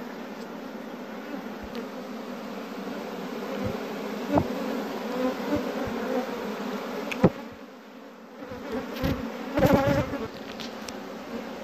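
Honeybees buzzing steadily in a swarm over an open hive's frames, with a few sharp clicks and knocks about four, seven and ten seconds in.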